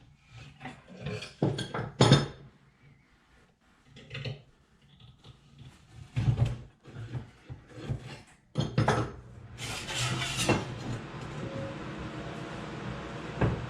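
Steel sheet metal and tools clanking and rattling as they are handled, with several sharp metallic knocks. Two-thirds of the way through, a steady hiss starts up and carries on.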